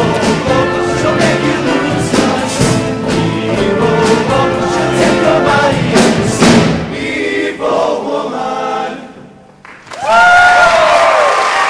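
Show choir singing in full harmony over instrumental backing with a strong beat, ending on a held chord that fades out about nine seconds in. After a brief pause the audience breaks into loud applause with whooping cheers.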